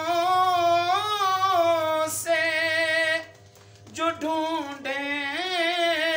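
A man's voice singing Urdu devotional verse unaccompanied, holding long notes that waver and slide in pitch. There is a short break for breath about three seconds in, then the singing resumes.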